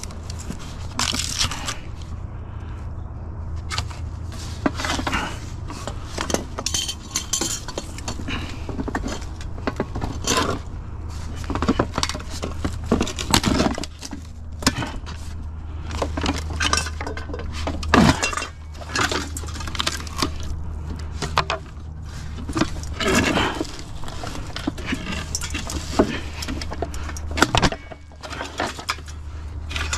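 A ceiling fan being taken apart by hand: frequent clinks, clicks and knocks of its metal parts and wooden blades against the motor housing, over a steady low hum.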